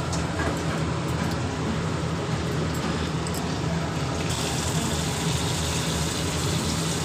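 Mung dal boiling in a kadai on a gas burner: a steady bubbling and hiss.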